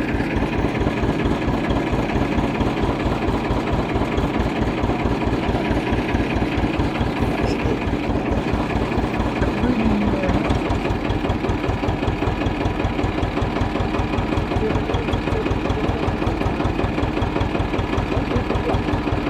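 Tractor diesel engine running steadily at low speed, with an even low thudding beat.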